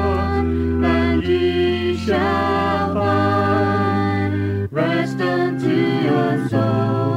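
Worship song music: sustained chords under a wavering melody line that changes note every second or so.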